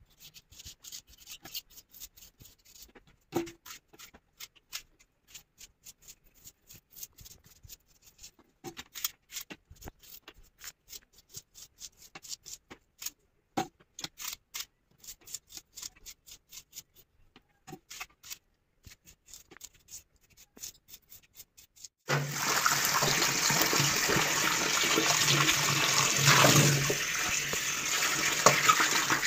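A kitchen knife peeling and cutting vegetable pieces on a banana leaf: a long run of faint clicks, scrapes and light cuts. About 22 seconds in, the sound switches to a water tap running hard into a steel bowl as the pieces are washed, a loud steady rush.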